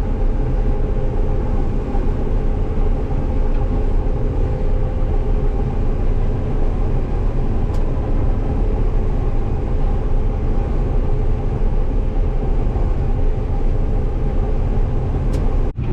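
Combine harvester running steadily while cutting soybeans: an even low engine and threshing drone with constant hum tones. The sound drops out suddenly for a moment near the end.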